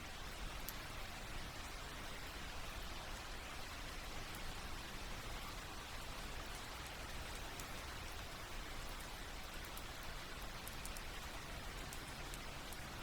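Steady rain falling, with faint scattered drop ticks over an even hiss.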